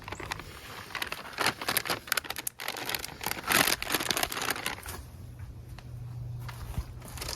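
Food packaging, a foil-lined freeze-dried meal pouch and a plastic cheese bag, crinkling and rustling in bursts as it is handled. The crinkling fades about five seconds in, leaving a steady low hum.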